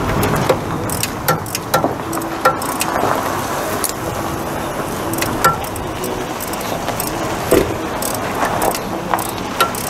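Dennis Dart SLF bus's Cummins 6BT six-cylinder diesel running after a start, with scattered sharp clicks and clinks over it.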